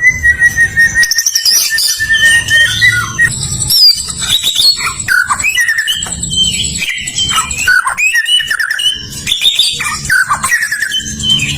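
Several songbirds singing at once in a dense, unbroken mix of whistled phrases, trills and chirps, with a low throbbing underneath.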